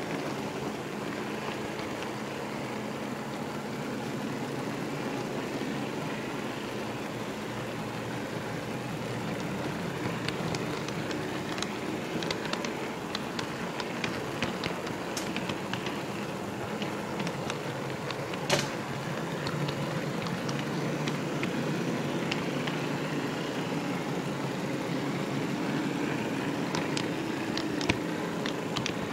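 HO-scale model railroad car rolling along the track, a steady rumble of its wheels on the rails with scattered clicks as it crosses rail joints and turnouts, the clicks coming thicker from about a third of the way in. One sharp click comes about two-thirds through, and another near the end.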